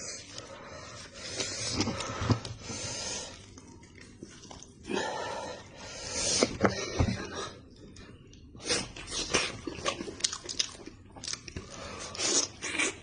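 Close-up eating sounds: chewing, sucking and lip-smacking on sheep's head meat, in irregular wet bursts with sharp clicks that come thicker in the last few seconds.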